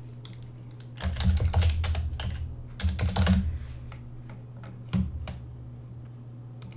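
Computer keyboard typing in two quick bursts, a short password typed into two fields one after the other, followed by a single click about five seconds in.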